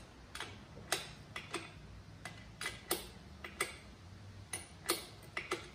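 A wrench turning a dirt bike's chain adjuster bolt to tighten the chain, giving about a dozen sharp metallic clicks at uneven intervals.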